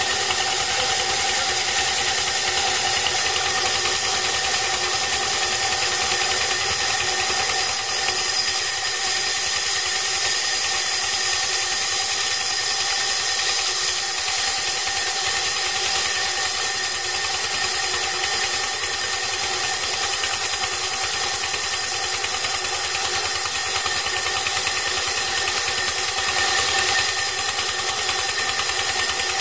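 Vertical band sawmill running steadily while a log slab is fed through its blade: an even machine drone with a steady high whine.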